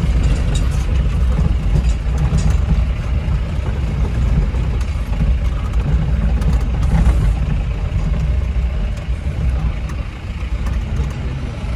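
A jeep's engine running with a steady low rumble.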